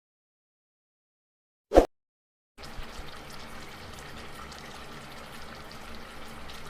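A single short thud a little under two seconds in, then about four seconds of steady watery noise of liquid running, which cuts off abruptly.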